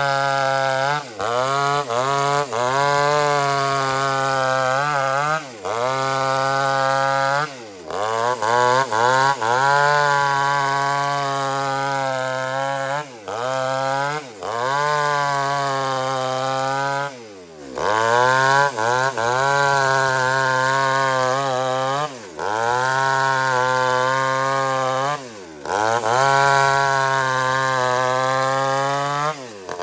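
Two-stroke chainsaw ripping an old teak log lengthwise, the engine held near full throttle. Its pitch sags under the cut and climbs back, with a brief drop every few seconds as the throttle is eased off and reopened.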